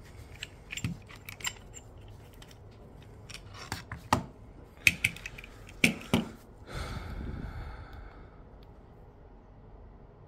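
Scattered sharp clicks and light knocks of a phone and a suction-cup screen-separator clamp being handled on a work mat, the loudest a few seconds in, followed by a short soft rubbing or sliding sound about seven seconds in.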